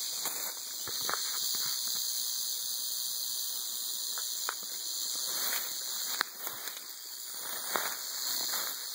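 Timber rattlesnake's rattle buzzing without a break, a high, steady hiss-like buzz: its defensive warning. A few brief crackles and rustles, with one sharp click about six seconds in.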